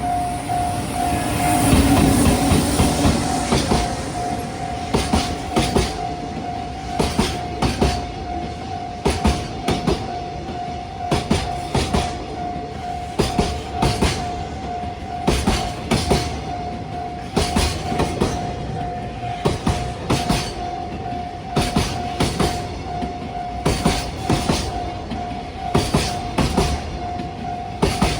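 Freight train passing over a level crossing. Heavy running noise in the first few seconds, then the wagons' wheels clack over the rail joints in regular clusters every second or two, with the crossing's warning bell ringing steadily throughout.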